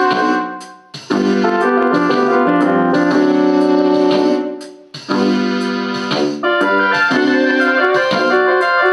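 Electronic keyboard playing sustained piano-toned chords. The sound dies away about a second in and again near five seconds, each time before a new chord is struck.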